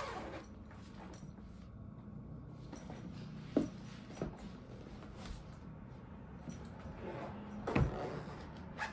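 A few soft knocks and handling noises, the loudest near the end, over a low steady room hum as a pair of boots is picked up and handled.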